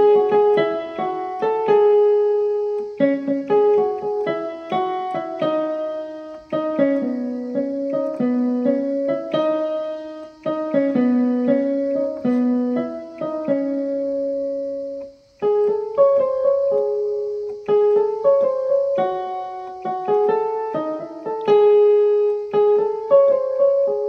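Background music: a solo piano playing a melody of single struck notes, with a brief pause about fifteen seconds in.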